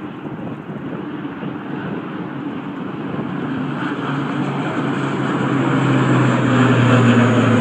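Twin-engine turboprop airliner passing low overhead, its engine and propeller drone growing steadily louder. A low, steady propeller hum comes in about halfway and is loudest near the end.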